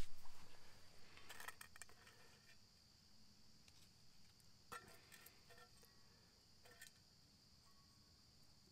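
Steady high chirring of insects, with a few faint scrapes and clicks of a spatula working in a carbon steel pan, around one and a half, five and seven seconds in.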